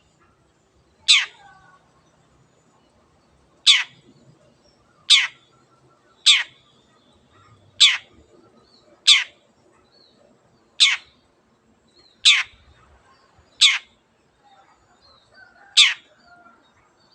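Long-tailed shrike (cendet) calling over and over: ten short, harsh calls, each dropping steeply in pitch, one every second or two, with faint softer chirps in between.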